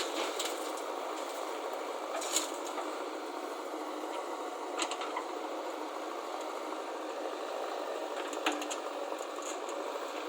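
Heavy machinery's diesel engine running steadily, with three short sharp knocks spread through.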